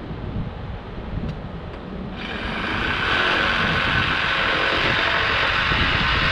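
Heavy construction equipment's diesel engine running, with wind on the microphone. About two seconds in it cuts abruptly to a much louder, harsher engine and machine sound.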